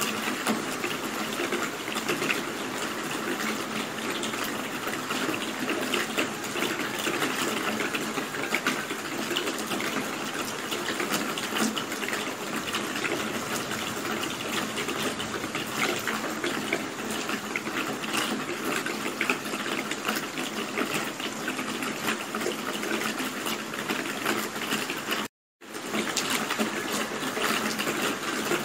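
Steady rain falling, a dense even hiss dotted with many sharp drop ticks. Near the end it cuts out completely for a split second, then resumes.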